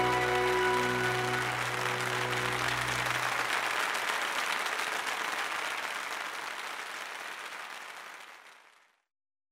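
A theatre audience applauding, swelling over the first few seconds as a held musical chord dies away, then fading out to silence near the end.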